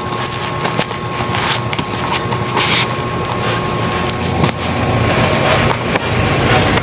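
Black plastic parcel wrapping rustling and crinkling as hands press and handle it, with a brief louder crinkle about two and a half seconds in, over a steady background rumble.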